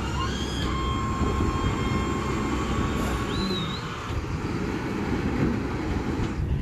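Rear-loader garbage truck's diesel engine running at the curb, a steady low rumble, with a faint steady whine over it early on and a short high chirp about halfway through.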